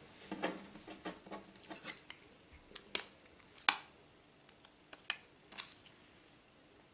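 Small handling noises: the backing being peeled off a thin adhesive metal plate, with light scattered clicks and rustles as the plates and phone are handled on a tabletop. The loudest clicks come around the middle, and it thins out toward the end.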